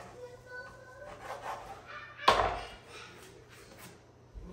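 Kitchen prep sounds of a knife cutting raw beef tongue on a wooden cutting board and the pieces being handled, with one sharp knock a little past two seconds in.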